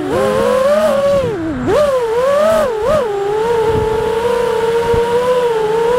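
5-inch Apex FPV quadcopter's brushless motors and propellers whining. The pitch swoops up and down with the throttle over the first three seconds, then holds fairly steady.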